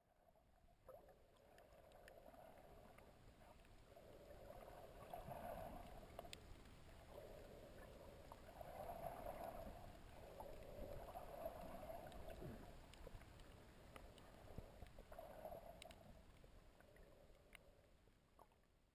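Faint, muffled water sound picked up by a camera held underwater. It swells and fades every few seconds and has scattered small clicks.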